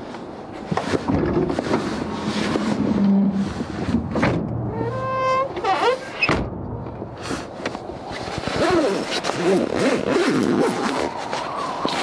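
Rustling of bedding and a nylon sleeping bag with small knocks of gear as a person shifts around in a pickup's camper-shell bed. A short high squeak sounds about five seconds in.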